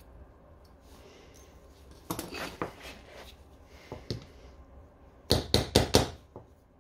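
Small hammer striking the bearing and axle of a Xiaomi M365 scooter's rear wheel, held in the hand: one sharp metallic tap, then four quick strikes in under a second. Before that come a few clinks of metal tools being handled.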